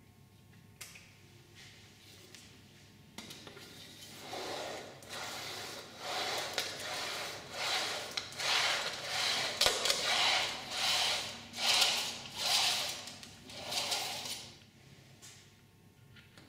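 Wuko 4040 Disc-o-Bender Twist hand hemming tool worked back and forth along the edge of a sheet-metal panel, folding the flange into a hem. It makes a series of rasping metal-on-metal swells, each about a second long, starting about three seconds in.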